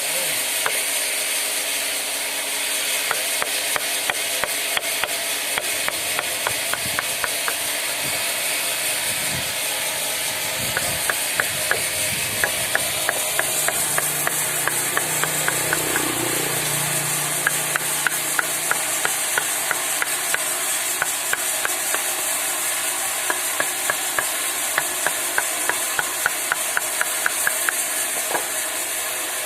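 Chisel being struck into wood, in runs of sharp, regular taps of about four a second, over a steady hiss.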